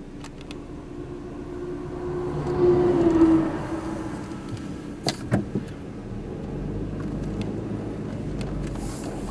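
A motor vehicle's engine, swelling to its loudest about three seconds in and then easing off. Two sharp clicks follow a little after five seconds, and a low rumble sits under the last few seconds.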